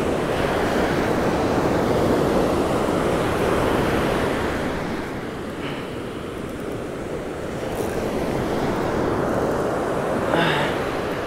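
Ocean surf breaking and washing up a sandy beach, the wash swelling and easing over several seconds, with wind buffeting the microphone. A brief sharper sound stands out near the end.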